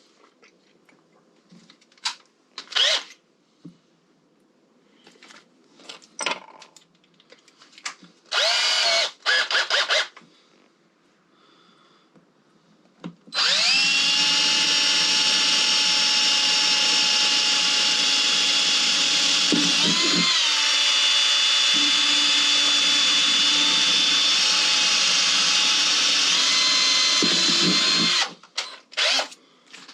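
Handheld electric drill: two short spins, then a steady run of about fifteen seconds, drilling a hole. Its pitch shifts briefly partway through before it cuts off, with a few light clicks and knocks from handling before it starts.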